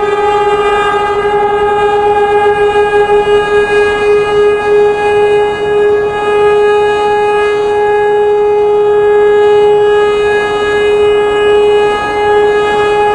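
Civil defense siren sounding one steady, held tone with strong overtones, its loudness wavering slightly.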